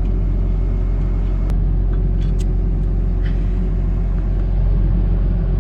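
Tractor engine idling steadily, a constant low rumble with a few faint light ticks over it.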